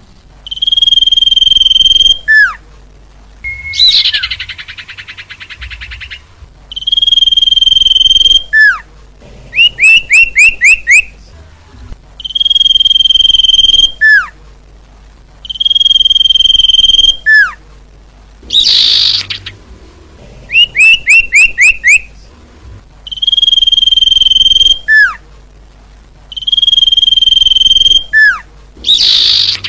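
Lure recording of the song of the bird known in Indonesia as sirtu. A loud held whistle ends in a falling slur and repeats every three to four seconds. Between the whistles come quick runs of about five falling notes, a buzzy trill a few seconds in, and two short harsh calls.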